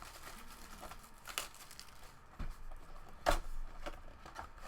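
Packaging of a 2016 Topps Finest baseball card box being torn open and crinkled, with two sharp rips.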